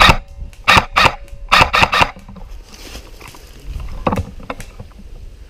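Airsoft rifles firing a string of sharp single shots, some in quick clusters of two to four, during the first two seconds. After that comes quieter rustling and scuffing through leaf litter, with a couple of soft knocks, as the player moves around the barricade.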